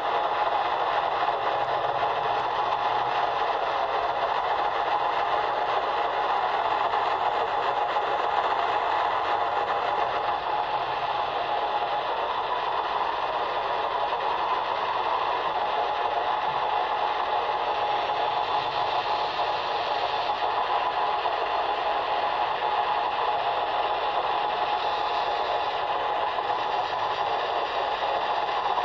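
AM radio tuned to 1340 kHz putting out steady static noise, with a thin steady tone running through the hiss.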